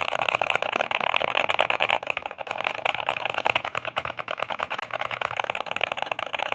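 Fast, continuous typing on a ROG 夜魔 (Night Demon) 98 HE mechanical keyboard with gold magnetic switches: a dense run of keystroke clacks with no pause, played as a sound test of the finished build.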